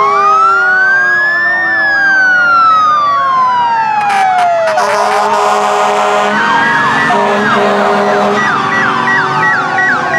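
Several fire truck sirens sounding at once as the apparatus drive past: slow rising and falling wails overlapping with faster, rapidly cycling yelps. Steady horn blasts cut in and out from about four to eight seconds in.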